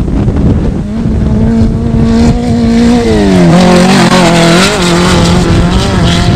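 Off-road desert race vehicle's engine running at speed as it comes by, its note falling in pitch about three seconds in, with a brief rise and fall shortly after.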